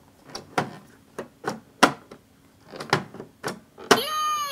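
Hard plastic clicks and knocks as the Elmo Shape 'n Spin Play-Doh playset's shape base is turned and pressed by hand, coming irregularly about six or seven times. Near the end a sharper click sets off a pitched electronic tone from the toy.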